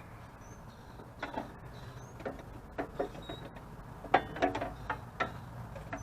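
Scattered light metallic clicks and knocks, some ringing briefly, of tools or hardware being handled, over a steady low hum.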